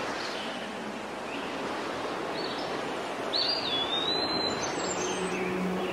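Outdoor ambience: a steady background hiss with small birds chirping, one clearer whistled call about three seconds in. A low steady hum comes in near the end.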